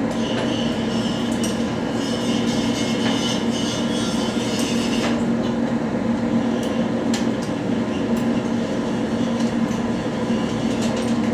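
Steady drone of a running machine with a strong low hum, a high whine over about the first half, and scattered light clicks.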